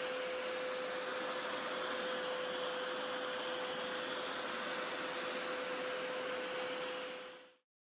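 Hoover Power Scrub Elite Pet FH50251 carpet cleaner running, a steady loud suction rush with a constant whine through it, cutting off abruptly near the end.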